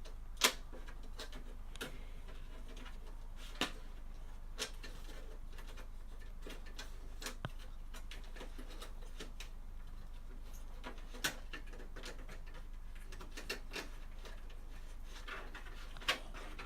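Scattered sharp clicks and taps of parts being handled during a computer build, irregular and a few seconds apart, the loudest about half a second in, over a steady low hum.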